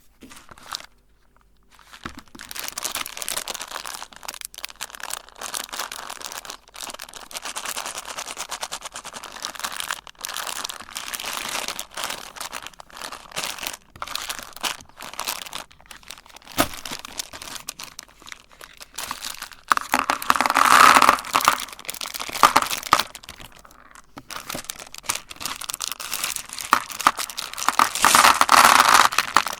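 Hard-shelled M&M candies crackling and crunching as a meat grinder crushes them, a dense run of sharp cracks that grows louder twice, about two-thirds of the way in and near the end.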